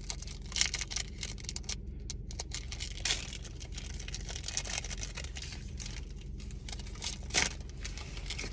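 Foil wrapper of a Pokémon trading card booster pack crinkling and tearing as it is opened by hand, with a few louder sharp rips.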